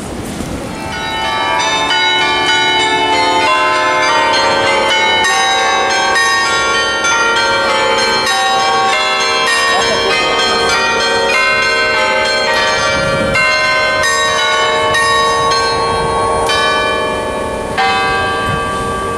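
A set of bronze bells hung in an open steel frame on a rooftop, struck one after another at different pitches to ring a tune. The notes overlap and ring on, and start about a second in.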